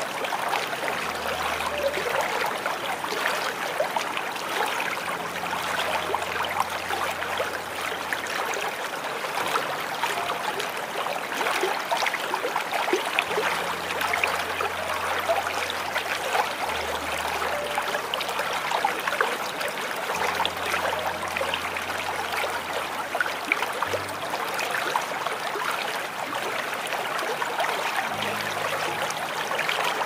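Small waterfall with water splashing and trickling steadily. Faint low held notes sound underneath, changing every few seconds.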